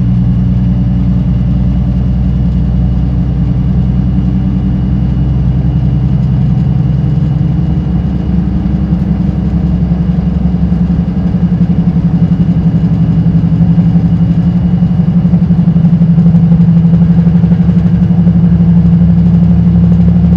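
Electric train running along the track, heard from inside near the cab: a steady low hum and rumble of motors and wheels that grows somewhat louder about halfway through.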